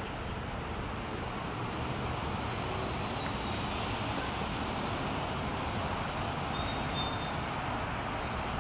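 Steady background hum of distant road traffic, with faint high bird chirps near the end.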